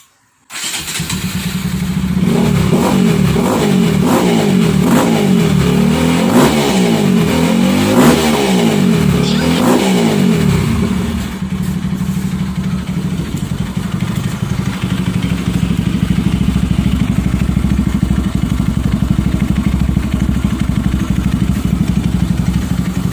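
RS200 motorcycle's single-cylinder engine running through an Akrapovič-style double-outlet aftermarket muffler. It is blipped up and down about five times in the first ten seconds or so, then settles into a steady idle.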